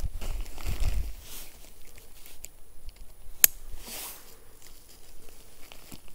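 Rustling and handling of a black fabric bikepacking saddle bag as it is rolled and fastened under the bike seat. There are a few dull bumps in the first second, and one sharp click about three and a half seconds in.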